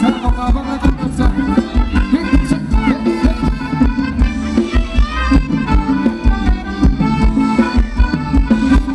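Live Thai ramwong band music with a steady beat under a lead melody line.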